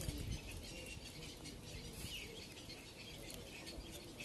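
Small birds chirping and twittering, short high calls over a low rumble.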